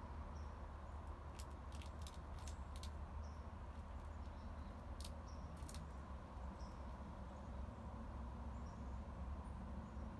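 Blue jay's beak clicking against whole peanuts in the shell on a wooden rail: a run of sharp clicks starting about a second and a half in, then two more about five seconds in. Faint distant bird chirps and a steady low rumble lie underneath.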